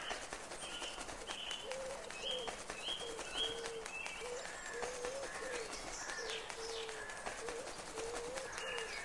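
Bird calls: a string of short, repeated chirping notes at several pitches, with a lower run of brief notes underneath, over a faint outdoor hiss.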